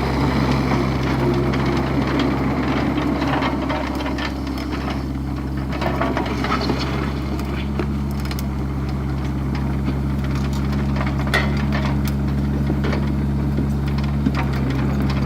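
Excavator's diesel engine running steadily, with scattered knocks and scrapes as it digs out a trench in dirt and rock.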